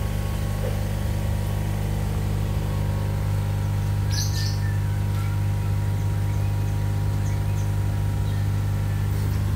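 Steady electric hum of the air pumps that drive the biofloc ponds' aeration. A bird chirps briefly about four seconds in.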